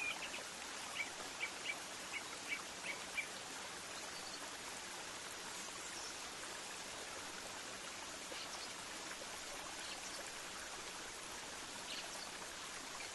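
Outdoor ambience: a steady, even hiss, with a small bird's short chirps repeated two or three times a second over the first three seconds, and a few faint high chirps later on.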